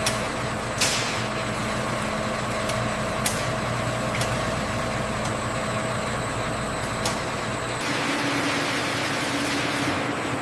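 Heavy machinery running steadily with a low hum, with brief hisses about a second in and again about three seconds in. Near the end the sound changes to a different, higher hum with a stronger hiss.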